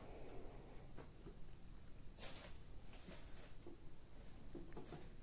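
Faint steady high chirping of insects, with a soft click about a second in and a brief rustle about two seconds in as the power cable is handled and plugged into the mixer.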